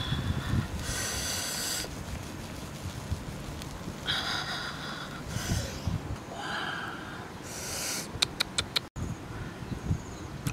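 A person sucking fried snails out of their shells: a series of short, loud slurping sucks, each under a second, then a quick run of sharp clicks about eight seconds in.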